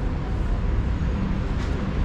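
Steady urban outdoor background noise with a constant low rumble, typical of nearby road traffic.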